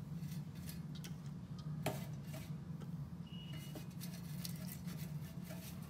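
Basting brush tapping and scraping against a metal air-fryer basket while oil is brushed on: scattered light ticks, one sharper tap about two seconds in, over a steady low hum.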